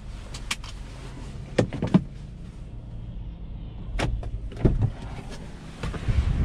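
Hyundai Kona N's turbocharged four-cylinder idling with a steady low hum, overlaid by a handful of sharp clicks and knocks, two close together about a second and a half in.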